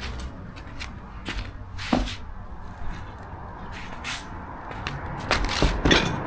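Packaging and parts being handled during unboxing: scattered rustles and light knocks, the loudest about two seconds in and a cluster near the end, over a low steady rumble.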